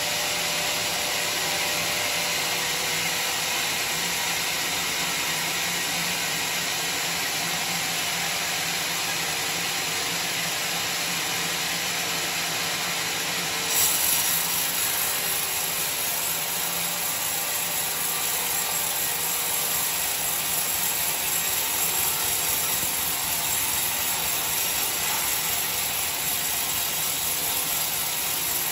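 Homemade band sawmill running, its steel band blade sawing lengthwise through a coconut-palm log with a steady, hissing cut. About halfway through, the sound briefly jumps louder and turns brighter.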